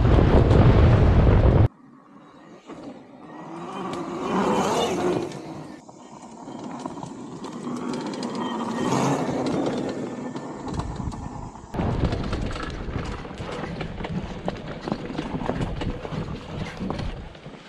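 Wind rumble on a helmet microphone as an electric dirt bike rides along. Then the bike's motor whine rises and falls twice as it rides past a trailside camera, a 72 V hub motor converted to mid drive. Near the end the rider's view returns, with wind noise and the bike clattering over a rocky trail.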